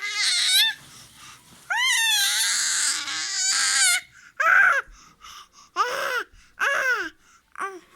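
Young child's high-pitched wailing cries: one long wavering wail, then several shorter cries that rise and fall in pitch.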